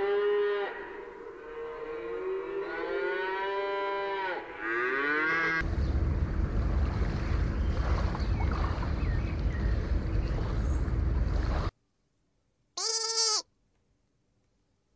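A cow mooing: a short moo, then a long drawn-out one. Then several seconds of steady rushing noise with a heavy low rumble, and after a brief silence a single short sheep bleat near the end.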